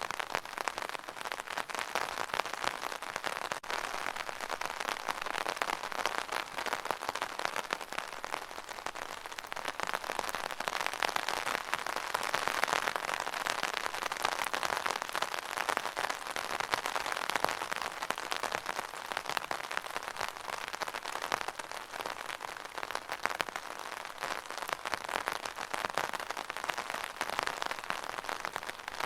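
Rain drumming on an umbrella's fabric canopy: a dense, continuous patter of drops that swells and eases slowly.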